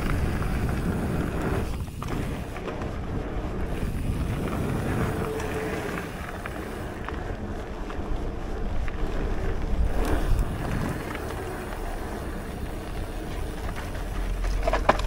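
Full-suspension Cube Stereo mountain bike rolling down a gravel trail: tyres crunching over the loose surface and the bike rattling, with wind noise on the microphone. An occasional knock comes as it hits bumps.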